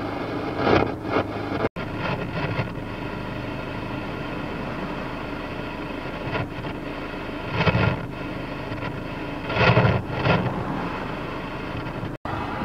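Cars and a van driving past on a country road, heard from inside a parked car. Each one comes through as a brief swell over a steady background hum.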